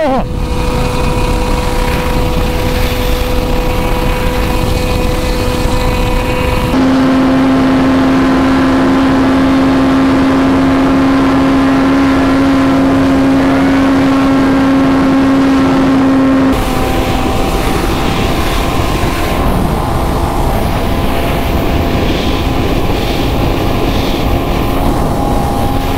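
Sport motorcycle engines held at high revs under full throttle at top speed, with heavy wind rush. The Kawasaki Z900's inline four is heard first and last. In the middle, from about 7 to 16 seconds, the Yamaha MT-09's three-cylinder takes over with a steadier, lower note. The engine note jumps abruptly at each change.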